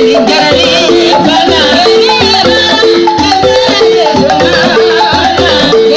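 Balafon music: short, quickly repeated wooden xylophone notes in a cycling pattern over a steady low percussive beat.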